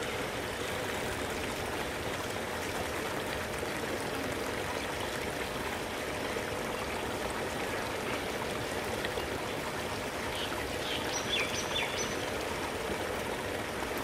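Water running steadily from a small inflow channel into a pond, an even rushing trickle.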